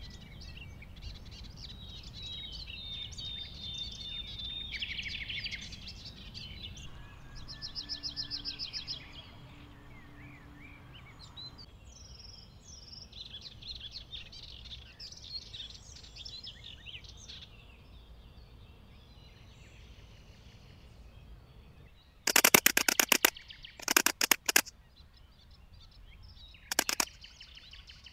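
Migratory locust (Locusta migratoria) stridulating: three loud, short bursts of rapid pulses in the last third. Birds chirp and trill in the background through the first half.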